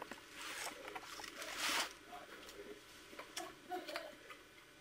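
Faint rustling and crinkling of a plastic bag and aluminium foil wrapped around food, in two short bursts in the first two seconds, followed by a few light clicks.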